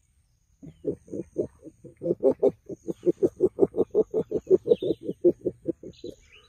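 A man imitating wild pig grunts by mouth through cupped hands. It is a rapid run of short grunts, about five a second, soft at first and louder from about two seconds in.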